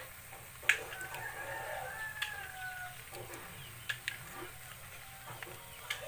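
A rooster crows once, a drawn-out call of about two seconds starting about a second in. Several sharp clicks and taps come from the plastic oyster sauce pack being squeezed over the metal pan, the loudest just before the crow.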